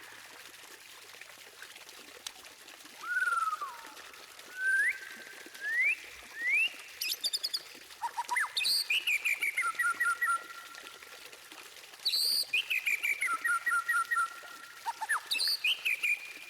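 White-rumped shama singing: a few separate whistled notes that slide up in pitch, then longer phrases of fast repeated notes with high twittering above them, each phrase broken off by a short pause.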